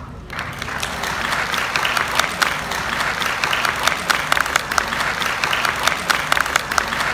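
Large audience applauding: dense clapping that builds over the first second and then holds steady.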